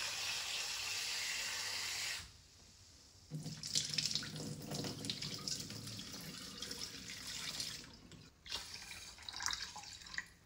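Kitchen tap running into a rice-cooker pot as rice is rinsed, the flow stopping about two seconds in. Then cloudy rinse water is poured out of the pot into a stainless-steel sink, splashing for several seconds, followed by a few light knocks near the end.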